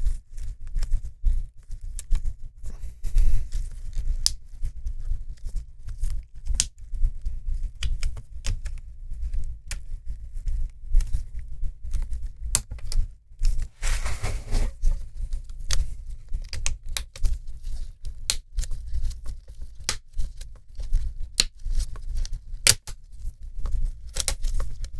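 Plastic screen bezel of a laptop being pried off its clips by hand: many irregular sharp clicks and snaps as the clips release, with a longer rubbing scrape about 14 seconds in.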